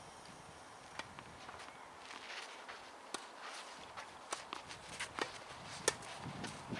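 Players' footsteps scuffing on a clay tennis court, with scattered sharp knocks of a tennis ball off the clay and racket strings; the loudest knock comes about six seconds in.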